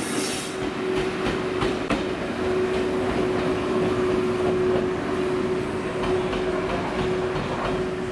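Train running through a railway station: steady rail running noise with a constant hum and a few clicks from the wheels. A high wheel squeal dies away just after the start.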